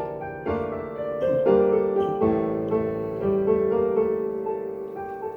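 Piano playing alone as an interlude between sung verses, notes and chords struck about once a second and left to ring, slowly getting quieter.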